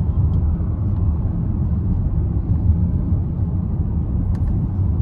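Steady low road rumble of a car being driven, heard from inside the cabin, with a faint tick near the end.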